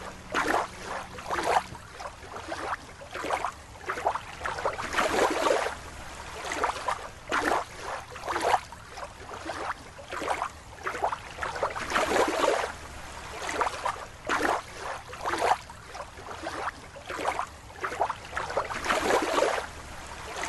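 Water sloshing and splashing in a long run of uneven swishes, roughly one to two a second.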